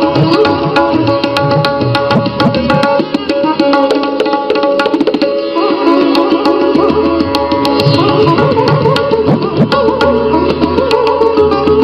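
Instrumental background music: a quick, busy drum pattern over sustained pitched tones.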